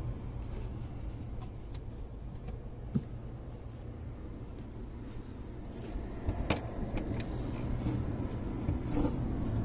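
A steady low hum inside a minivan's cabin, with a few sharp clicks and knocks of hands working at the dash trim: one about three seconds in and a few more in the second half.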